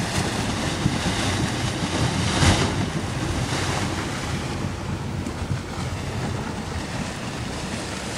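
Wind buffeting the microphone: a rushing, fluctuating noise with a stronger gust about two and a half seconds in.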